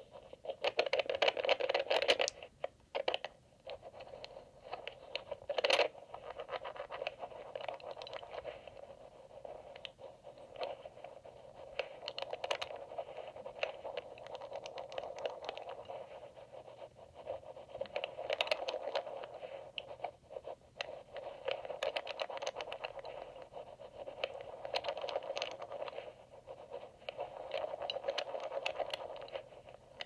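Amplified scratching and scraping of a lock pick working the rotors of an EVVA MCS magnetic lock, coming in uneven bursts with a few sharper clicks. The loudest stretch is about one to two seconds in.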